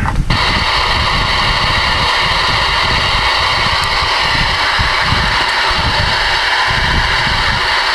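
CB radio receiver static: a loud, steady hiss from the radio's speaker with the squelch open, starting abruptly as the transmit key is released.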